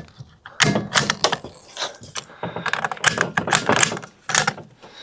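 A quick, uneven run of sharp mechanical clicks and clacks, about three a second, from handling the action of a suppressed bolt-action .22 rifle.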